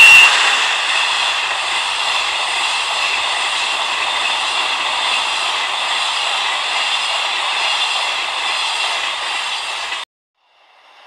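N-gauge model train (a DD51 diesel locomotive model hauling blue sleeper coaches) running along the layout track: a steady rolling rattle of small wheels on rail, with a high motor whine loudest at the start as the locomotive passes close. The sound cuts off suddenly near the end, and a fainter rolling sound of another model train follows.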